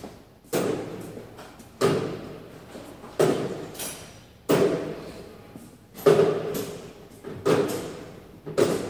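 Seven heavy knocks at an even pace, about one every 1.3 seconds, each ringing out and dying away in a large, echoing room.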